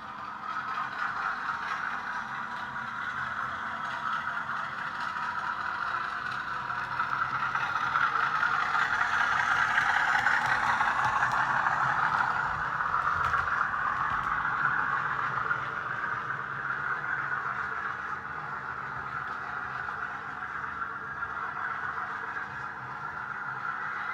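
OO gauge model locomotive with a South West Digital sound decoder playing a Class 50 diesel engine sound through its small onboard speaker, with wheels rattling on the track. It grows louder as the model runs past, loudest about ten to fourteen seconds in, then fades.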